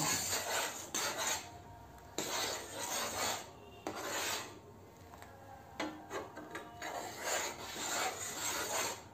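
Steel ladle scraping around a steel pan of milk being stirred as it thickens, in a series of scraping strokes with short pauses between them.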